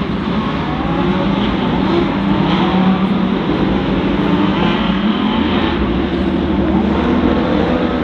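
A pack of GT3 race cars accelerating together at the race start. Many engines run at once, their overlapping tones sliding up and down in pitch, growing a little louder over the first couple of seconds.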